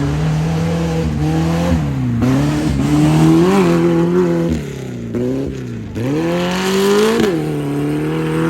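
Off-road race vehicle's engine revving up and down repeatedly as the throttle is worked through the course, easing off briefly about two-thirds of the way through and then climbing again near the end.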